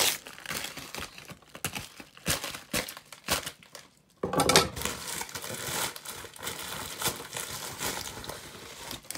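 A plastic postal mailer being torn open and crinkled by hand, in irregular rustles and snaps, becoming a denser stretch of crinkling about four seconds in.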